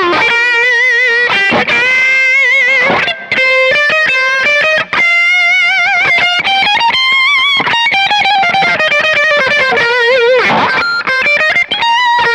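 Seven-string multiscale electric guitar with series-wired single-coil pickups playing a lead passage: sustained notes held with wide vibrato, bends and quick runs between them.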